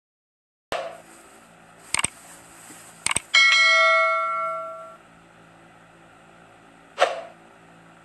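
Subscribe-button sound effects: a sharp hit, then two quick double mouse clicks about a second apart, followed by a bright notification-bell ding that rings out for over a second. Another sharp hit comes near the end, over a faint steady hum.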